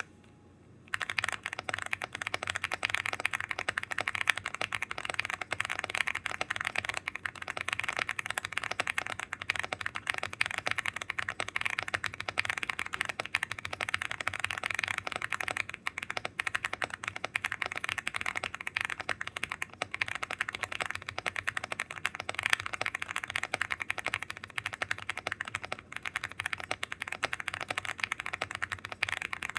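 Typing on a Velocifire BK75 gasket-mounted 75% mechanical keyboard with foam layers and double-shot PBT keycaps: a fast, continuous stream of keystrokes starting about a second in.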